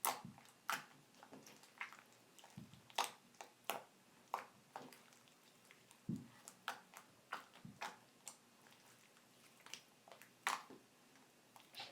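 Homemade glue-and-borax slime being squeezed and kneaded by hand, giving irregular sticky pops and clicks, about one or two a second, with a few soft thuds.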